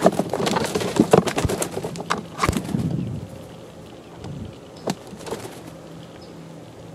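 Young chickens, about eleven weeks old, clucking and calling, busiest in the first three seconds and then quieter, with a sharp tap about five seconds in.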